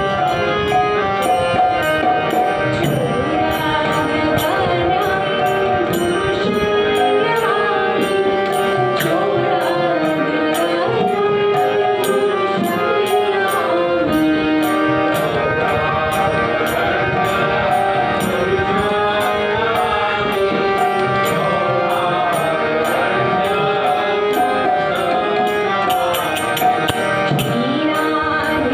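A woman singing a devotional hymn, with sustained instrumental accompaniment and a steady percussion beat.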